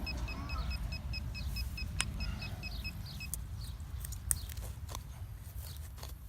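Metal detector beeping rapidly in quick, even high beeps, about five a second, as it sits right over a buried target; the beeping stops about three seconds in, leaving short scattered clicks and scrapes.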